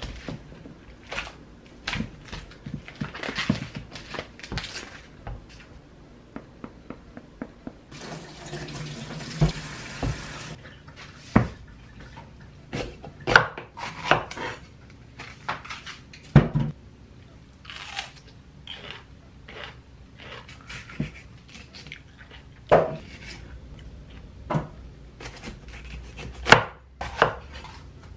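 Clicks and knocks as bell peppers are taken out of their clipped plastic pack, then a few seconds of running tap water about a third of the way in. After that a Chinese cleaver strikes a camphor-wood cutting board at uneven intervals as the peppers are sliced.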